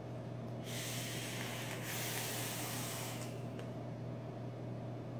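A long airy hiss, about three seconds, of a hard draw through a freshly dripped 0.2-ohm quad-coil Buddha V2 rebuildable dripping atomizer as the coils fire.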